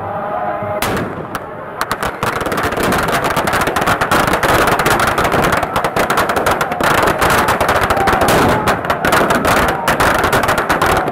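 Firecrackers packed into a burning Ravana effigy going off: a couple of separate bangs in the first two seconds, then a dense, rapid crackle of bursts.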